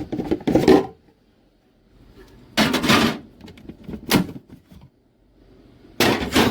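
Plastic fridge compartments and drawers being pulled out and handled: a few separate clatters and scrapes, one short and sharp about four seconds in.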